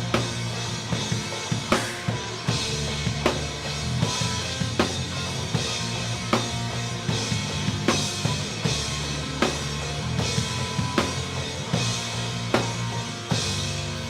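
Rock band playing an instrumental passage with no vocals: a drum kit hitting the snare on a steady beat over bass drum and sustained low notes.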